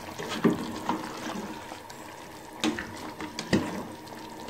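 Chicken and yogurt gravy bubbling in a metal pot over high heat as it is stirred with a spoon. There are four brief knocks or scrapes of the spoon.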